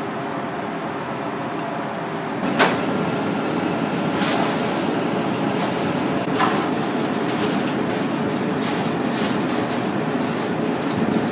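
Kitchen background noise: a steady rumble with occasional sharp clicks and clatters, the loudest about two and a half seconds in.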